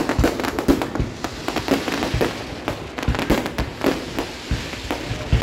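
Fireworks display with aerial shells bursting overhead: many bangs in quick, irregular succession.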